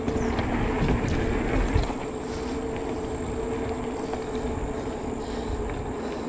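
E-bike riding along a paved trail: steady wind and tyre rush with a steady hum from the bike, and a couple of knocks about one and two seconds in as the wheels cross a wooden footbridge and roll off it.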